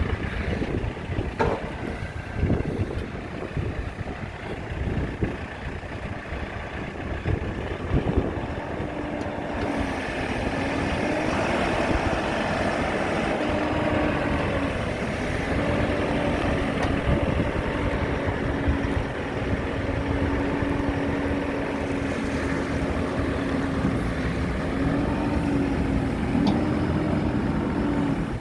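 JCB 3CX backhoe loader's diesel engine running, its pitch stepping up and down several times. The engine grows louder and fuller about ten seconds in.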